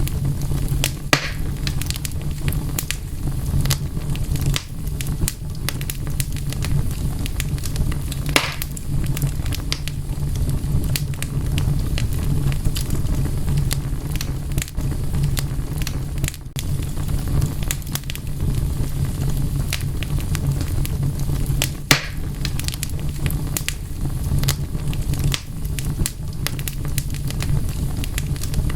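Wood fire crackling: a steady low rumble of burning under frequent sharp snaps, with a few louder pops.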